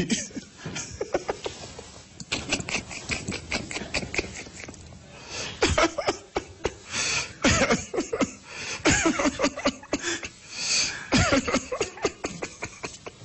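A man's fit of uncontrollable laughter that stops him from speaking, coming in repeated bursts: softer breathy laughs at first, then louder voiced laughter from about five seconds in.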